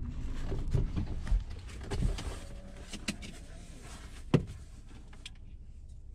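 Low rumble inside a car cabin that eases off after about two and a half seconds, with scattered clicks and knocks and one sharp knock about four seconds in.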